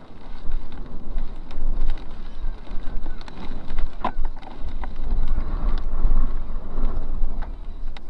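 Storm-force gusting wind buffeting a car and its microphone, a heavy low rumble that swells and eases and is strongest in the second half. Scattered sharp ticks strike the car throughout, the loudest about four seconds in.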